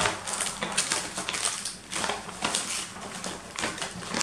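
Irregular crinkling and rustling as a small makeup kit and its packaging are handled.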